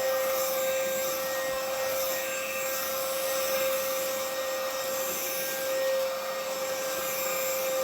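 Cordless stick vacuum running steadily with an even, high motor whine, sucking up dog hair.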